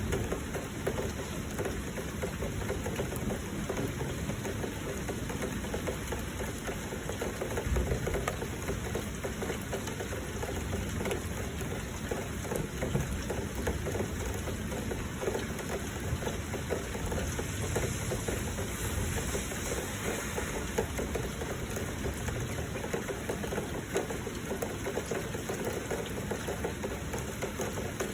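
Heavy rain and flowing water: a steady, unbroken rushing noise, heaviest in the low range.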